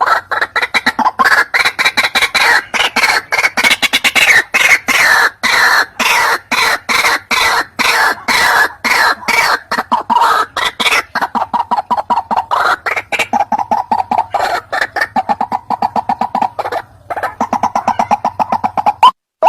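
White-breasted waterhen (ruak-ruak) calling as a bird-lure recording: a fast run of repeated calls, several a second. About halfway through they settle into lower, more even notes, then stop shortly before the end.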